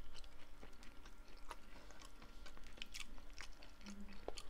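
A man chewing a mouthful of strawberry muffin close to the microphone: irregular mouth clicks throughout.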